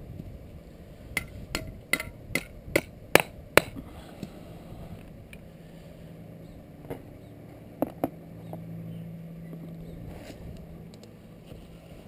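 Claw hammer driving a large nail through a wooden rat trap into the ground: seven quick strikes, about two and a half a second, getting louder, then a few softer knocks.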